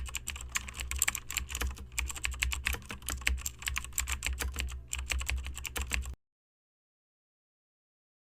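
Fast typing on a computer keyboard: dense, irregular key clicks over a low hum, cutting off suddenly about six seconds in and followed by dead silence.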